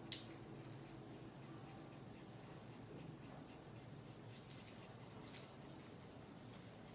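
Yellow felt-tip marker scratching over paper in short back-and-forth coloring strokes, faint. Two sharp ticks stand out: one right at the start and one about five seconds in.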